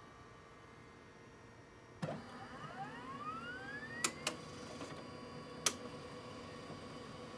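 1991 Apple LaserWriter II laser printer starting a print job: a sudden thump about two seconds in, then a motor whine rising in pitch for about two seconds, three sharp clicks, and a steady running hum.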